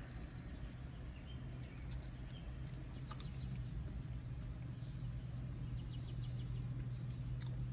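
Small birds chirping faintly outside, a few short calls about two seconds in and again near six seconds, over a steady low hum. Soft mouth clicks of someone chewing food.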